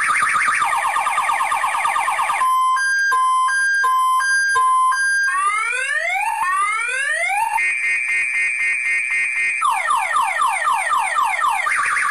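Electronic car alarm siren cycling through its tone patterns: a warbling tone, then alternating high-low beeps, a run of rising whoops, a fast steady trill, and rapid repeated sweeps before the warble returns.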